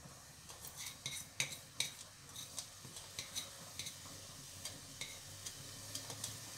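Sliced onions frying in hot oil in a stainless steel pot: a faint sizzle with scattered sharp crackles and pops, irregular, about one or two a second.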